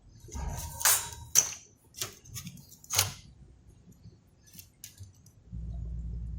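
Small hard clicks and taps of tools being handled on the workbench while soldering a console's power connector, a handful in the first three seconds. A steady low hum comes in near the end.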